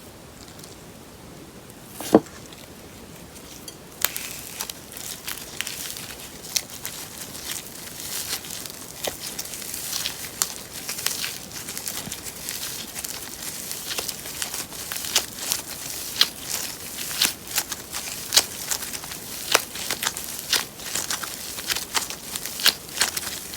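Slime being squished and kneaded by hand, giving irregular sticky pops and crackles that come thicker and louder as it goes on. A single sharp knock about two seconds in, before the popping starts.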